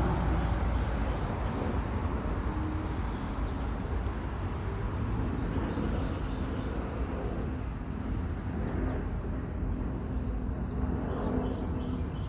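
Outdoor background noise: a steady low rumble with a few faint, short, high bird chirps.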